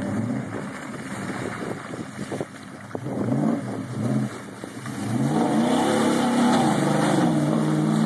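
Chevrolet pickup's engine revving hard as it drives through a mud hole, the revs rising and falling a few times and then held high from about five seconds in.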